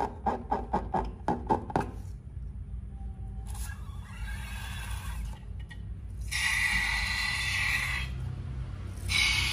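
A slime-filled rubber balloon being squeezed: a quick run of squelching clicks for about the first two seconds, then hissing, sputtering spurts as slime and air are pushed out of the balloon, louder around six seconds in and again near the end.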